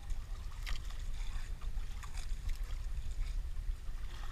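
Wind rumbling on the microphone, with scattered faint knocks and rustles.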